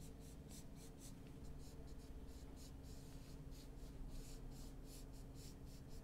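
Flat paintbrush scrubbing acrylic paint onto canvas in many short, light strokes: a faint, quick, scratchy brushing, several strokes a second.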